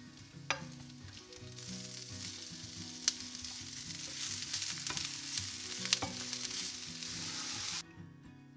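Food sizzling in a hot frying pan, with a few sharp clicks of a utensil against the pan; the sizzle starts about a second and a half in and cuts off abruptly near the end. Soft background music plays underneath.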